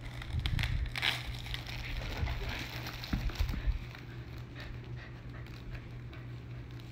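Corgi puppy shuffling about on a fleece blanket: soft rustles and scratchy clicks, with a few low bumps about a second in and again around three seconds in. A steady low hum runs underneath.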